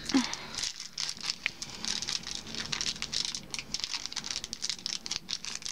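Foil wrapper of a Yu-Gi-Oh trading card booster pack crinkling and crackling in the hands as it is worked at to get it open.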